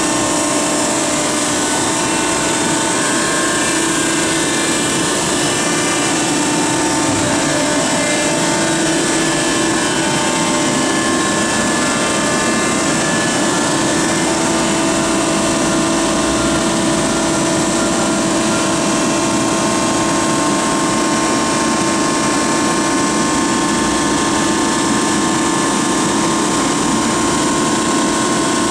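Harris HRB two-ram baling press running, its hydraulic power unit driven by two 75 HP electric motors giving a steady machine noise with several held tones over a hiss.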